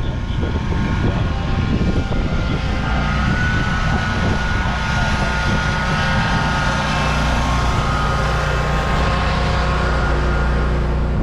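An engine or machine running steadily: a low rumble with a steady whine above it.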